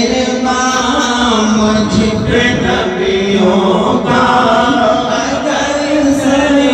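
A man singing a naat, an Islamic devotional poem in praise of the Prophet, unaccompanied into a microphone, amplified through a sound system. He draws out long held notes that bend and slide between phrases.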